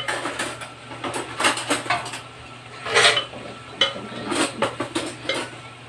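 A wooden spoon scraping ground pinhão (Araucaria pine nuts) out of a bowl into a stainless steel pot, with irregular knocks and scrapes of spoon on bowl and pot, one louder about three seconds in.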